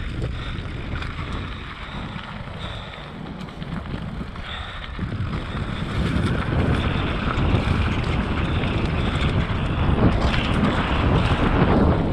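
Wind buffeting an action camera's microphone over the crunch of mountain-bike tyres on a dry dirt trail, with the bike rattling. It grows louder about halfway through, with scattered clattering knocks near the end.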